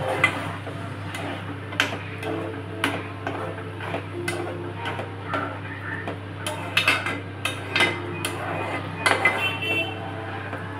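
Metal ladle stirring a thick curry in a steel pan, scraping and clinking against the pan's sides and bottom at an irregular pace, busiest in the second half. A steady low hum runs underneath.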